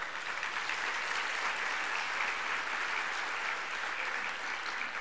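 Audience applauding, starting abruptly and holding steady.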